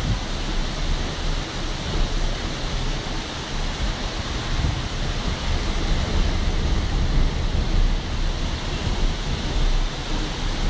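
Tropical-storm wind and rain, a steady rushing hiss, with gusts buffeting the phone's microphone in an uneven low rumble.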